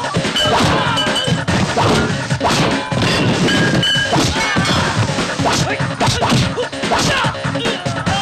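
Film fight-scene sound effects: a rapid, dense series of punch and kick whacks and crashing hits.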